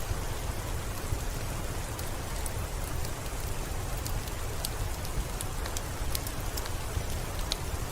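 Steady rain falling on a window, an even hiss with scattered sharp ticks and a low rumble underneath.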